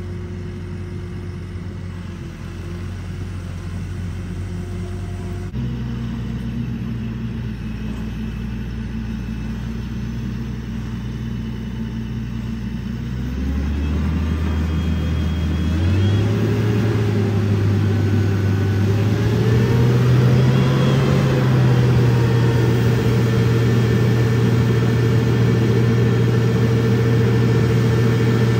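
Boom truck's diesel engine running, its revs stepping up several times over the first twenty seconds and then held high and steady, getting louder as it climbs.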